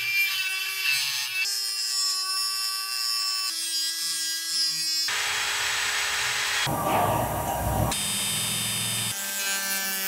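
High-speed rotary tool cutting and grinding a small metal screw, a steady motor whine that changes pitch with each short clip. A harsher grinding noise takes over from about halfway through for a few seconds.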